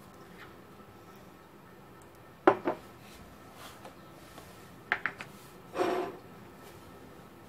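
Glass bowls and dishes knocked and set down on a table: two sharp clinks about two and a half seconds in, a quick run of clinks around five seconds, and a short ringing knock near six seconds.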